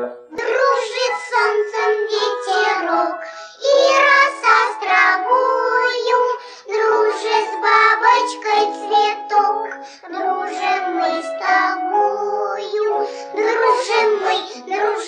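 Background music: a song with a high singing voice over accompaniment, starting abruptly just after the start.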